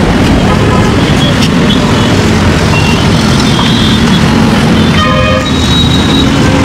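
Road traffic: vehicle engines running close by in a steady drone, with a horn honking for about half a second around five seconds in.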